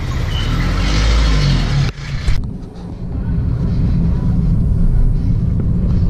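Busy street noise with a motorbike passing close by. After an abrupt cut, the steady low rumble of a car driving along a road.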